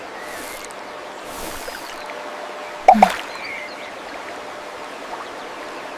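Steady trickling stream sounds, with one sharp water plop about three seconds in.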